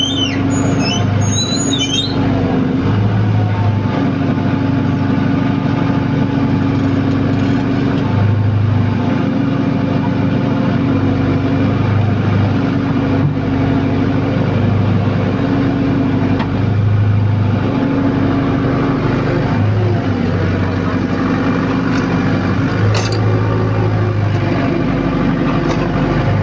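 Generator-powered pile-driving rig running under load: a loud, steady low hum that shifts between a lower and a higher pitch every few seconds as it works, with high squeals in the first two seconds.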